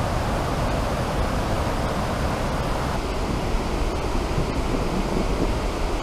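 Steady rushing of the Urriđafoss waterfall and its white-water rapids.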